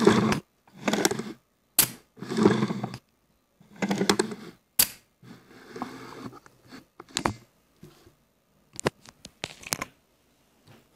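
Gamo Shadow 1000 air rifle being handled during reassembly: the synthetic stock and metal parts rub and scrape, with a string of sharp clicks from parts seating. The scraping stretches are loudest in the first half, and the clicks thin out toward the end.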